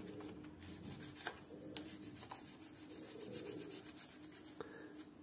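Faint rubbing and handling noises with a few small, light clicks, as bicycle hub parts are handled and oiled, over a faint steady hum.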